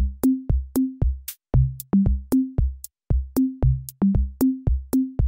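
Background music: an electronic drum-machine beat with short bass notes, about four to five hits a second.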